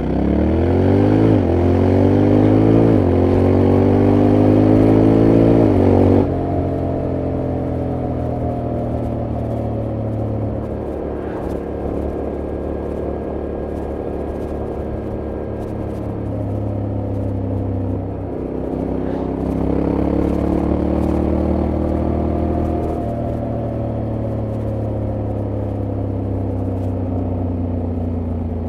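Honda X-ADV 750's parallel-twin engine accelerating hard through the gears, its pitch climbing and dropping at three quick upshifts in the first six seconds. It then cruises at a steady pitch, with another short acceleration and upshift about two-thirds of the way in.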